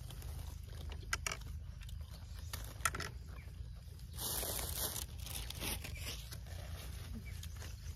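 Sounds of a meal eaten by hand: a few small clicks and a brief crinkling rustle about four seconds in, over a steady low hum.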